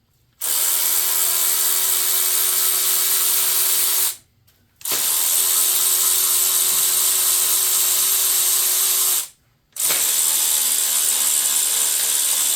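Trigger-operated shop tool running in three long, steady bursts of about four seconds each, stopping sharply between them: a loud hiss with a steady hum under it.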